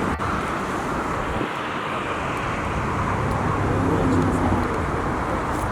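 Steady roar of jet aircraft engines, an even rumble and hiss that holds level throughout.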